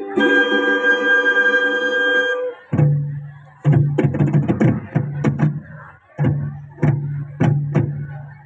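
Instrumental music: a held chord for about two and a half seconds, then a low drone note under a rhythmic pattern of sharp percussive clicks that breaks off briefly twice.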